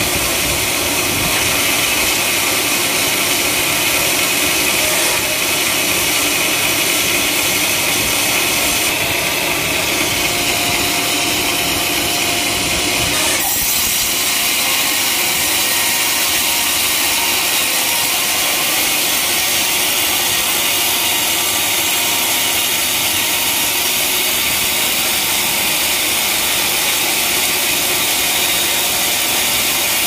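Sawmill band saw running and cutting lengthwise through a large teak log, a loud steady sawing noise.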